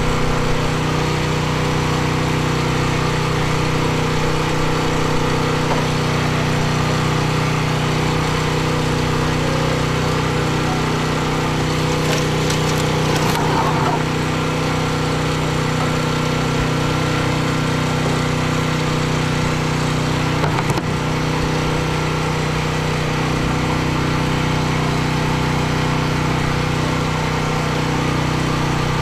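A small engine running steadily at a constant speed, a continuous drone that does not change. A few faint clicks and knocks come through around the middle.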